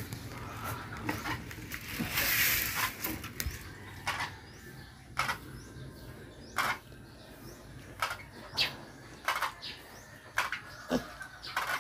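A piglet moving about a concrete pen floor scattered with feed pellets: irregular short sharp clicks, with a brief rustle about two seconds in.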